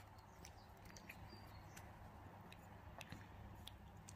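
Faint, irregular small wet clicks of a two-week-old Finnish Lapphund puppy suckling on a feeding bottle, a few clicks a second, over a steady low hum.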